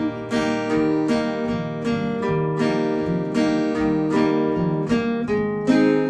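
Acoustic guitar strumming chords in an instrumental break between verses of a folk song, with steady, evenly paced strums about two and a half a second and changing chords.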